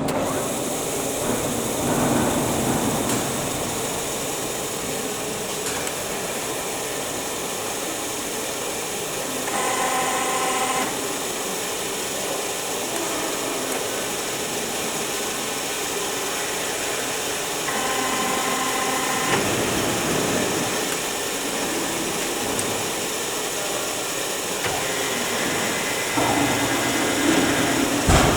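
Amada AM-03 milling machine running with a steady mechanical hum. A short whine of about a second and a half cuts in twice, about ten seconds apart.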